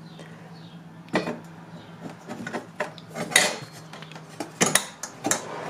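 Thin sheet-metal plate handled and fitted onto a plastic air filter box: scattered clicks, taps and scrapes of metal against plastic, over a faint steady hum.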